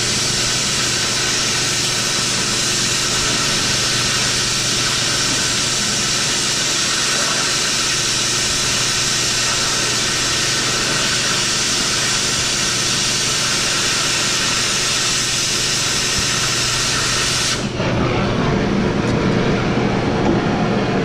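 Oxy-fuel cutting torch hissing steadily as it cuts through the steel of a dump truck's fantail. About three-quarters of the way through, the high hiss cuts off suddenly, leaving a lower, rougher flame sound.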